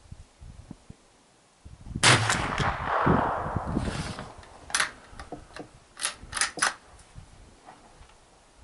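A single shot from a Savage bolt-action .22 LR rifle about two seconds in, with a long rolling echo that fades over a couple of seconds. It is followed by a sharp metallic click and then a quick run of clicks, the bolt being worked to chamber the next round.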